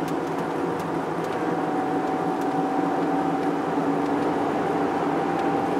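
Steady road and engine noise inside the cabin of a moving car, with a faint steady high tone coming in about a second in.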